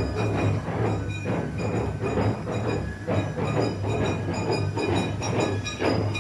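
Festival percussion: rhythmic strikes, about two a second, over a steady low hum and a few steady high ringing tones.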